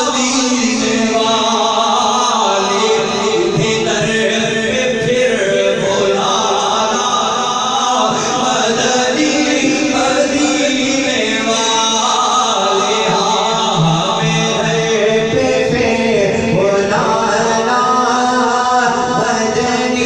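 A man singing a naat, an Urdu devotional song, into a microphone, with long held notes that bend up and down in pitch.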